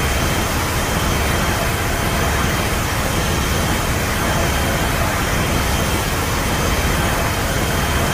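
Creature sound effect for a fictional kaiju: a loud, steady rushing noise with no clear pitch, heaviest in the bass.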